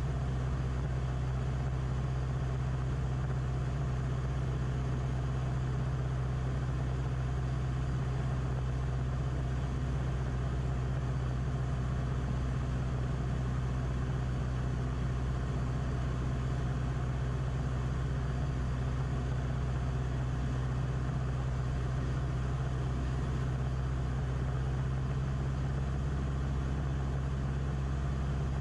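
Beechcraft Musketeer's piston engine and propeller droning steadily in flight, heard inside the cockpit as a constant low hum.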